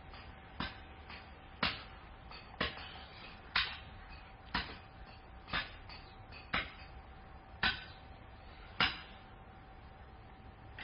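Sharp knocks repeating at a steady pace of about one a second, nine in all, over a faint steady hum.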